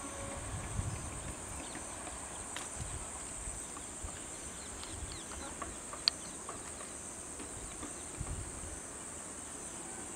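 Steady high-pitched insect buzzing, like crickets, with scattered faint bird chirps, a faint low rumble and one sharp click about six seconds in.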